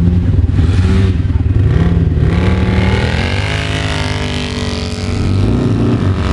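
Polaris RZR side-by-side engines running, with a second RZR driving past about four seconds in, its engine pitch falling as it goes by and pulls away.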